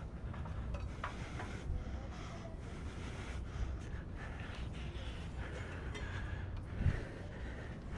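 Wind buffeting an action camera's microphone as a steady low rumble, with the climber's breathing over it and a dull thump about seven seconds in.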